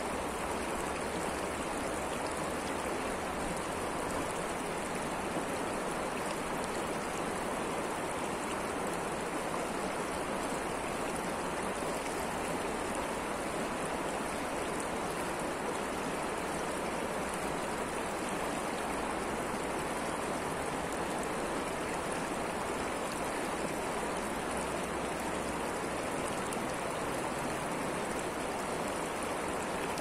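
Mountain river flowing: a steady, even rush of water.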